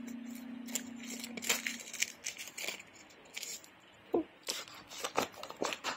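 Clear plastic sticker packets being handled and shuffled, giving short, irregular crinkles and clicks. A low steady music tone fades out about two seconds in.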